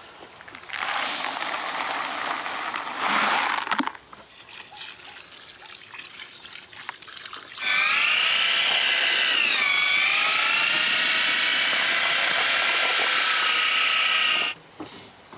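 A bucket tipped into a plastic mixing tub, a pouring rush lasting about three seconds. After a pause, an electric drill with a paddle mixer runs in the tub for about seven seconds, mixing concrete; its motor whine dips briefly in pitch partway through and then cuts off.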